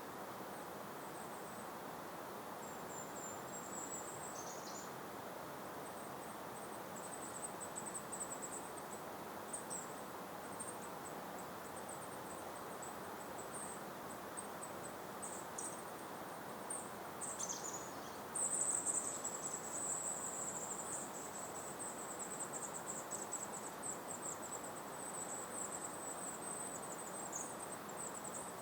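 Open-meadow ambience: a steady soft hiss of breeze, with a very high, thin trill that grows louder about two-thirds of the way in, and a few short falling chirps.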